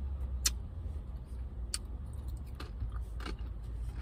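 Steady low rumble of outdoor background noise coming in through an open car window, with a few sharp clicks and taps scattered through it.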